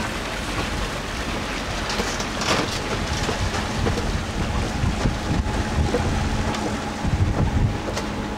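Wind buffeting the microphone and water rushing past a moving motorboat, a loud even rushing noise; a faint steady engine hum comes in about halfway through.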